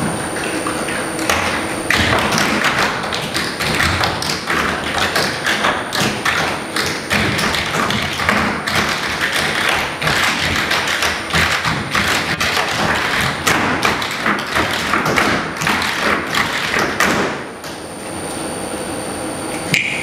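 Tap shoes of a group of dancers striking the stage floor in a rapid, dense clatter of taps, dying away near the end.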